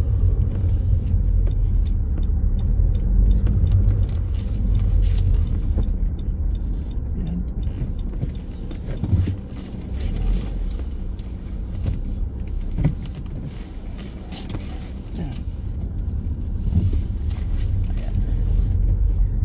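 A car's engine and tyre rumble heard from inside the cabin while driving, a steady low sound that drops quieter for a few seconds about halfway through, with a couple of light knocks.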